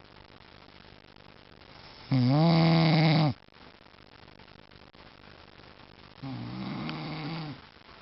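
A sleeping man snoring: two drawn-out snores with a buzzing pitch, one about two seconds in and a quieter one about six seconds in, with faint breathing between them.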